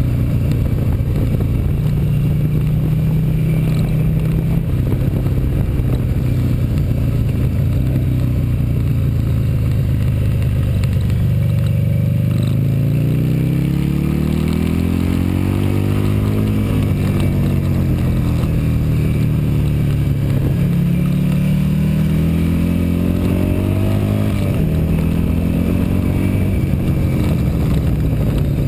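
Motorcycle engine at speed, heard from a camera on the handlebars over steady wind rush. The engine pitch climbs under acceleration and drops off as the throttle closes for corners, twice in the second half.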